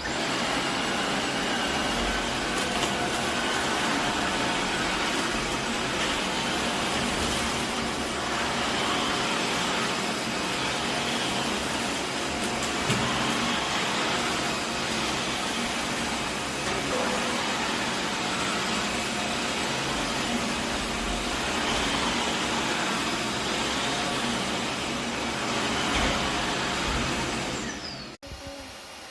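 Vacuum cleaner motor running steadily, a constant loud whooshing hum, stopping suddenly near the end.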